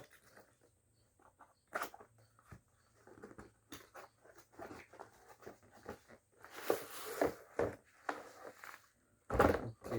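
Cardboard box being opened and its contents handled: scattered clicks, scrapes and rustles of cardboard flaps and packaging, busier about seven seconds in, with a heavier thump near the end.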